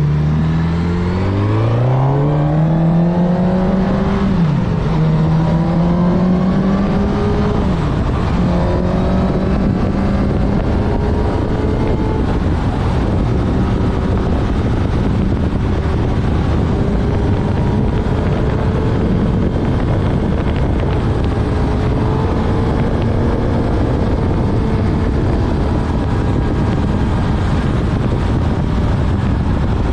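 Honda CB1000R's inline-four engine pulling hard under acceleration, its pitch rising, with two quick upshifts about four and eight seconds in. It then cruises at a fairly steady speed under a constant rush of wind noise.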